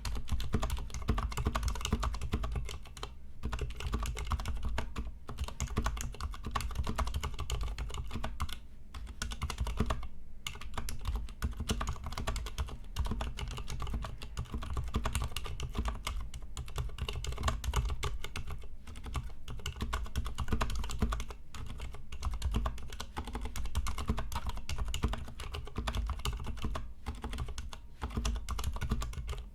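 Continuous typing on a Ducky Miya Pro mechanical keyboard with Cherry MX Silent Black switches, unlubed and with no case foam: a fast, dense run of muted keystrokes with a couple of short pauses.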